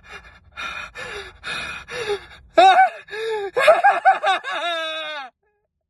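A man's voice making a run of short, breathy gasps, then a drawn-out pitched vocal sound that slides down in pitch and cuts off suddenly near the end.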